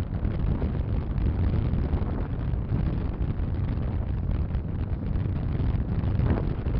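Strong wind buffeting the microphone: a steady, gusty low rumble.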